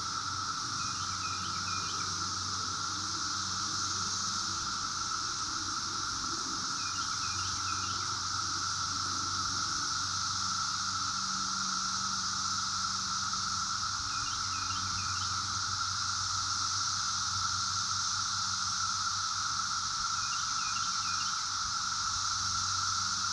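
Cicadas droning in a steady, continuous high buzz. A bird gives a short call of three or four quick notes four times, with a low hum beneath.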